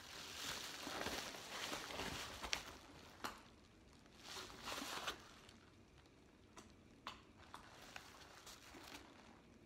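Paper mailer envelope crinkling and rustling as books are pulled out of it for the first few seconds. After that it quietens to softer handling with a few light clicks and taps.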